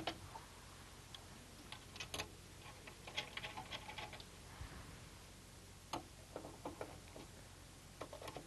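Faint scattered clicks and light metallic ticks of hands working at the back of an open PC case, fastening the expansion cards' bracket screws. There is a quick run of ticks about three to four seconds in.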